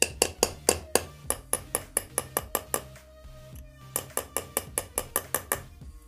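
Small hammer striking a very rusty folding knife held on a concrete floor: sharp metal-on-metal taps in two quick runs of about five a second, with a pause of about a second between them.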